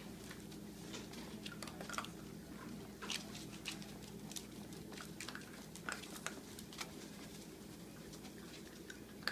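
Close-up chewing and crunching of food, in short irregular bites.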